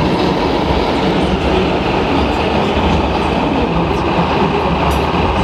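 Radio-controlled scale Volvo FH truck's engine sound, a steady, loud diesel rumble as the truck drives slowly.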